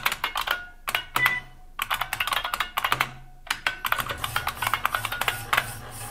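Loud clicky keystrokes on an IBM 6780 Quietwriter typewriter's keyboard: fast bursts of typing, broken by short pauses about one, two and three and a half seconds in.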